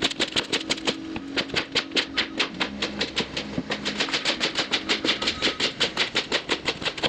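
Farm machine running with a steady hum under a rapid, even clatter of about six clicks a second.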